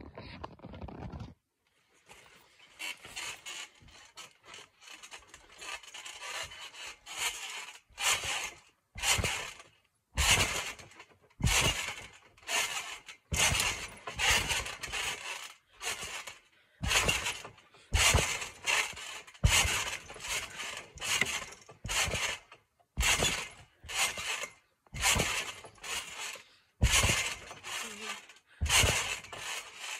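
Garden trampoline being jumped on: the mat and springs sound with each bounce, irregular at first, then a steady rhythm of about one bounce a second, heard close up from the trampoline's frame.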